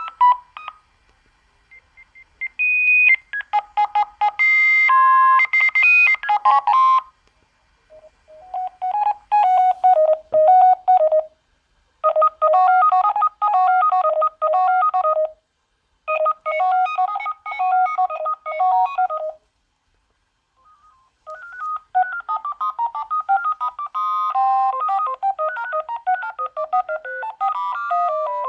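Sagem my101X mobile phone playing several of its built-in ringtones in turn through its small speaker: simple beeping electronic melodies, each a few seconds long, with short pauses between them.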